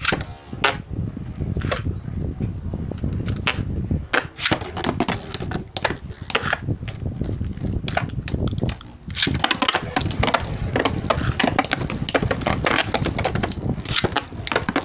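Metal-wheel Beyblade spinning tops whirring in a plastic stadium, clattering against each other and the stadium walls with many sharp clicks of collision. The clicks grow busier in the second half.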